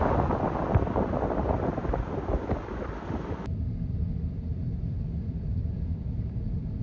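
Heavy rain pattering densely, which cuts off abruptly about three and a half seconds in to a steady low rumble.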